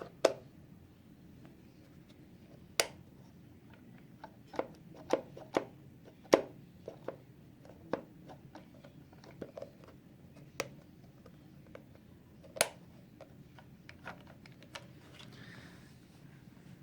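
Plastic clicks and snaps of a Roomba 980 bin's HEPA filter cover and its cracked latch being worked open and shut by hand. A cracked latch like this doesn't catch all the way unless it is pushed over. The clicks come at uneven intervals, a few loud ones among many faint handling taps.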